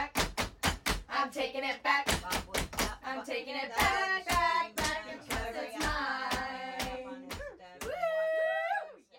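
Background song with a sung vocal over a sharp, steady beat; near the end the singer holds one long note, then the music cuts off suddenly.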